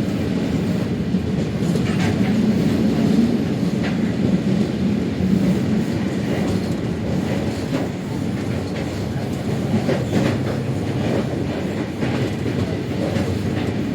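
Interior of a moving train carriage: a steady low rumble of the train running, with occasional faint clacks of the wheels over rail joints.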